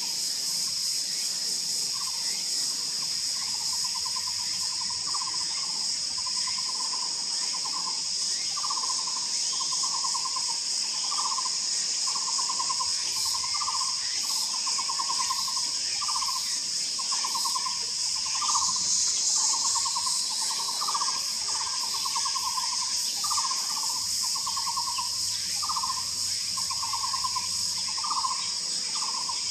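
Taiwan barbet calling: short trilled notes repeated about once a second, over a steady high-pitched insect drone.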